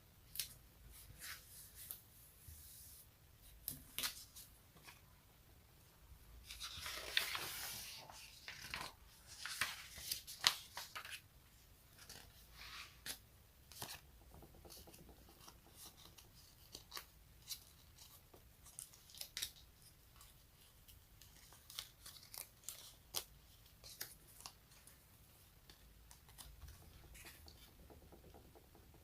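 Sticky surfaces being pulled apart: a string of sharp crackling clicks and pops, with one longer tearing peel about seven seconds in.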